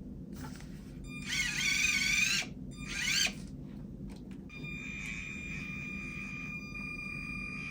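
Axial SCX24 1/24-scale RC crawler being powered up: two short warbling electronic whines from its electronics, then a steady high-pitched whine that starts about four and a half seconds in and holds.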